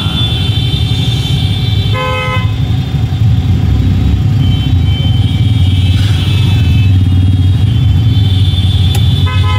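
Jammed city traffic: car and scooter engines running at idle, with a short horn blast about two seconds in, another horn starting near the end, and further horns honking in the background.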